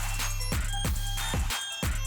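Electronic background music with a heavy bass line and a steady drum beat, about two beats a second.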